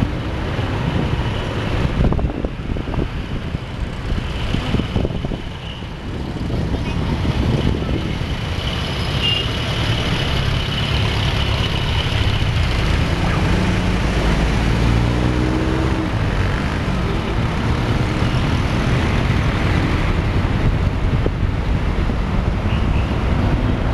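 Car driving on a road, heard from inside the cabin: steady engine and tyre noise, with the engine note climbing as it speeds up about two-thirds of the way through.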